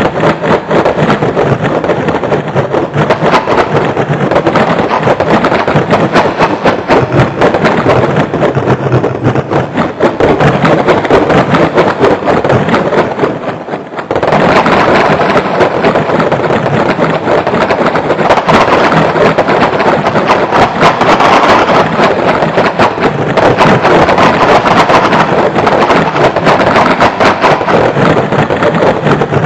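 Dense computer-generated electronic music: a loud, noisy, crackling texture of rapid clicks over a low drone. It thins out briefly about halfway through, then comes back just as dense.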